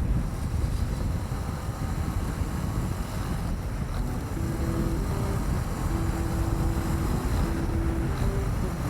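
2020 Honda CB300R's single-cylinder engine running under way, mixed with wind noise on the microphone; about four seconds in the engine note steadies into a held hum.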